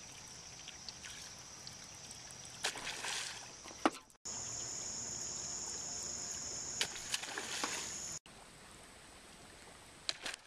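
Splashes on the water surface from topwater bass lures being worked, in short clips spliced together, over a steady high-pitched hum. The background changes abruptly twice at the cuts.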